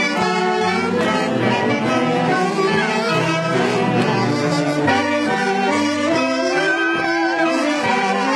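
Live band music for a street dance, a melody carried by wind instruments with sustained notes and some vibrato.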